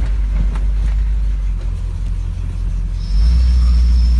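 1973 International Harvester Scout II engine running just after a cold start, a steady low rumble. About three seconds in it grows louder and a thin, steady high whine joins in.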